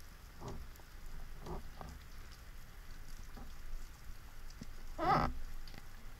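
Underwater ambience picked up by a camera in its housing: a steady low rumble with a faint crackling patter, broken by a few short watery bursts and a louder wavering gurgle about five seconds in.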